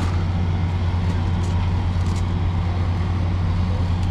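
Standing diesel passenger train idling: a steady low drone. A few light clicks sound over it.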